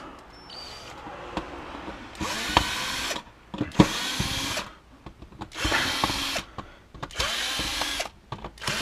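Power drill with a narrow bit backing recessed screws out of a power strip's casing, running in about four short bursts of roughly a second each with quieter handling between them.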